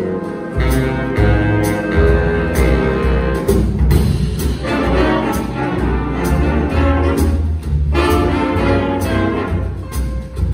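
Jazz big band playing: brass and saxophones over upright bass and drum kit, with a steady beat.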